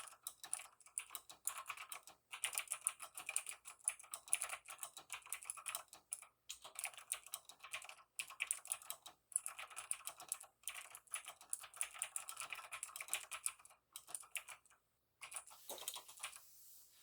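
Fast, continuous typing on a mechanical keyboard with clicky Outemo Blue switches lubed with Krytox 205g0: a dense clatter of key clicks with brief pauses. The typing stops about two and a half seconds before the end, leaving only a faint noise.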